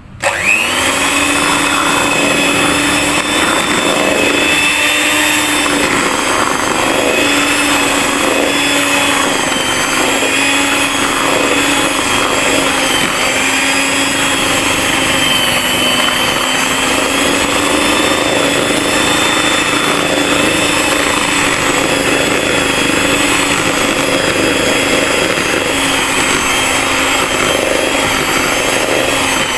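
Miyako electric hand mixer switched on and running steadily on a slow setting: a motor whine with a low hum. Its beaters are working flour into a butter-and-egg cookie dough.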